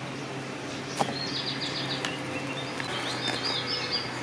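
A small songbird singing short phrases of rapid repeated high notes, twice, over a steady low hum. A single sharp click about a second in.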